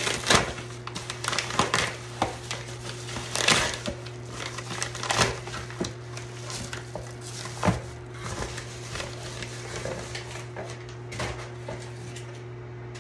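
Plastic poly mailer bag being torn open and handled: irregular crinkling and sharp crackling snaps, thinning out near the end, over a steady low hum.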